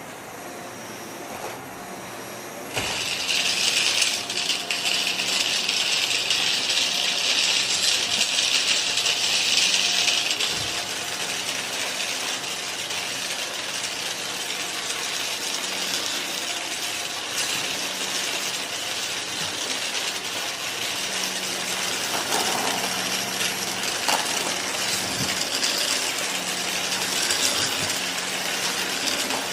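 Shark vacuum cleaner running while it sucks up pennies, the coins clattering and rattling through it. About three seconds in it gets louder, with a dense rattle for several seconds, then settles to a steadier run with scattered clunks.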